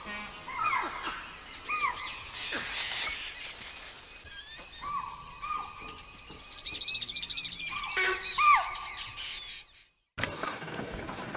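Birds calling: repeated short chirps that bend down in pitch, with a quicker run of higher twittering notes about seven seconds in. The sound drops out briefly near the end.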